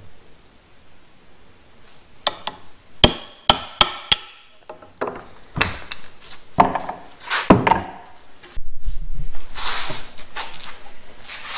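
Hammer blows on cedar split rail, knocking a rail into its mortise: a quick run of sharp strikes, then several duller knocks, and a rough scraping noise near the end.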